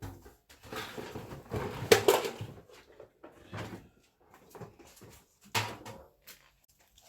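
Irregular knocks and clatters, like things being handled and bumped, loudest a bit after two seconds in.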